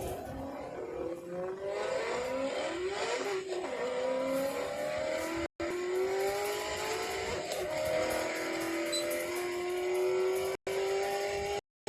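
Car engine revving, its pitch climbing in a few quick sweeps like gear changes, then rising slowly and steadily through a long pull. The sound cuts out completely for a moment about halfway and twice near the end.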